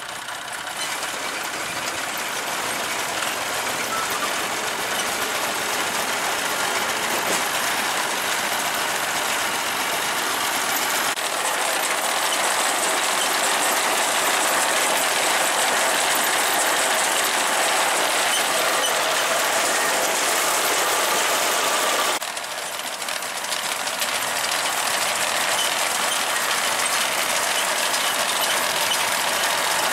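Vintage tractor engine and its machinery running steadily, swelling in the first second and dropping briefly about 22 seconds in before picking up again.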